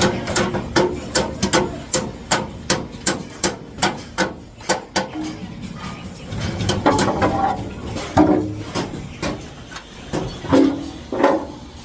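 Hammer striking aluminium formwork in quick, sharp blows, about three a second for the first few seconds, then more scattered.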